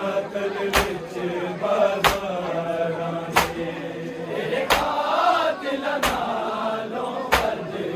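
Mourners beating their chests in unison in matam, six sharp strikes about 1.3 seconds apart, under voices chanting a nauha.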